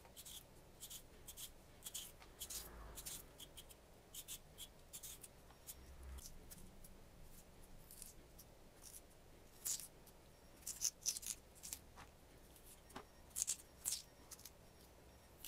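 A small knife scraping and paring the skin off a raw potato: faint, irregular short scrapes, with a few louder strokes in the second half.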